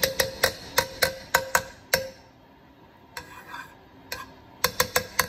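A spatula knocking and scraping against a nonstick frying pan while stirring melting butter: a quick run of sharp taps with a short ring, a pause about two seconds in, then another run of taps near the end.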